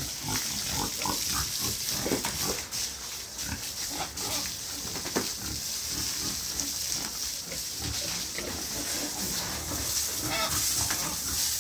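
Pigs grunting, many short grunts overlapping one another.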